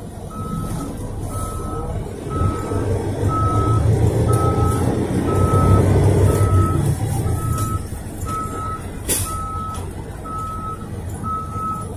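A dump truck's reverse alarm beeping about once a second as the truck and end-dump trailer back up, over the diesel engine, which swells louder for several seconds in the middle. A short hiss comes about nine seconds in.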